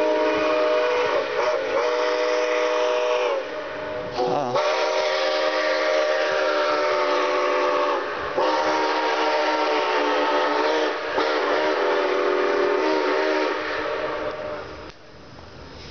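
Steam locomotive chime whistle blown in long blasts, several notes sounding together as a chord, with short breaks about four and eight seconds in and a wavering pitch as the valve reopens, fading out near the end.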